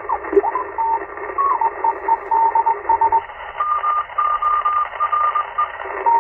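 Icom IC-720 HF transceiver's speaker playing shortwave band static with Morse code signals beeping on and off, first one pitch and then a slightly higher one from about three and a half seconds in. A short whistle glides down near the start as the dial is tuned.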